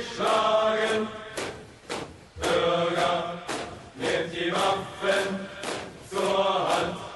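Background music: a choir chanting in phrases of about a second each, over a steady beat of about two drum strokes a second.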